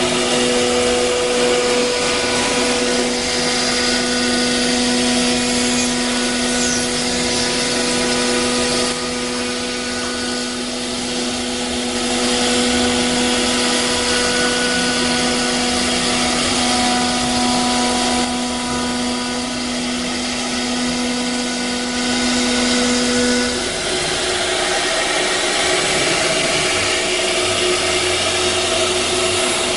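CNC router spindle running and cutting: a steady whine over a dense, rough cutting noise. The main whine tone drops out about three-quarters of the way through while the cutting noise goes on.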